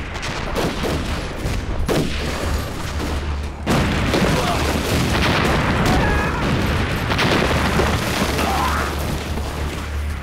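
Battle sound effects of explosive satchel charges going off amid rifle fire, with a big blast about three and a half seconds in and men shouting and yelling through the din.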